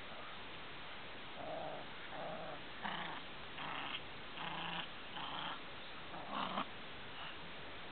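Small dogs play-growling as they wrestle: a run of about seven short, rough growls, one under a second apart, starting about a second and a half in.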